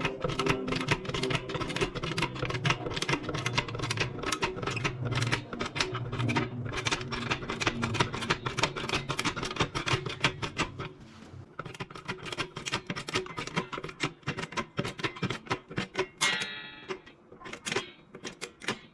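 Background music with a plucked, strummed guitar and a fast, steady rhythm, which thins out and grows quieter in the last several seconds.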